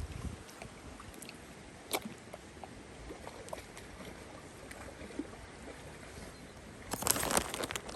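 Steady rush of water, then about seven seconds in a burst of splashing as a swimming Dalmatian paddles through the water.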